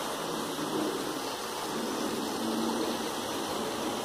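Model diesel locomotive and coach running along the track: a steady whirring rumble of the motor and wheels on the rails.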